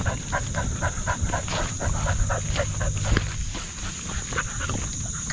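A dog panting rhythmically and fast, about four breaths a second, picked up close by a camera strapped to its back as it walks.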